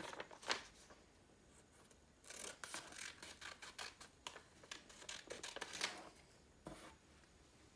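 Scissors cutting thin paper: a couple of snips at the start, then a run of quick snipping cuts from about two seconds in, with one last snip near the end.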